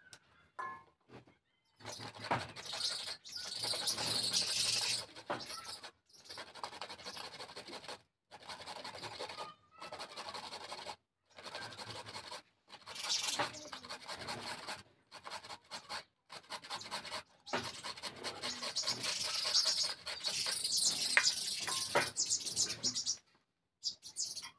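Carrots being grated on a metal hand grater: runs of quick rasping scrapes, stroke after stroke, broken by short pauses.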